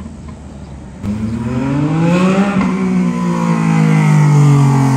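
Remapped Yamaha MT-09's inline three-cylinder engine running loud through a straight-through exhaust with no silencer. About a second in it opens up suddenly, its pitch rises to a peak, then slowly falls while the exhaust stays loud.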